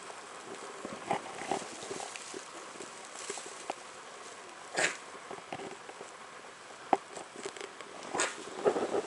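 Newborn puppies giving short squeaks and whimpers now and then, with the straw bedding rustling under them. The sounds come in short bursts and grow more frequent near the end.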